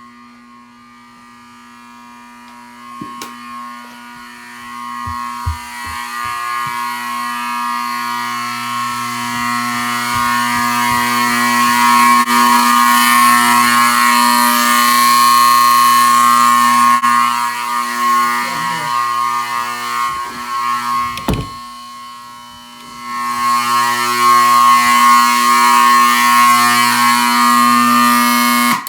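Wheelock 31T-115 120-volt AC horn sounding on its own: a steady, very loud pitched horn tone, a little scratchy because it is vibrating the wall. It grows louder over the first dozen seconds, dips briefly about three quarters of the way through, and cuts off suddenly at the end.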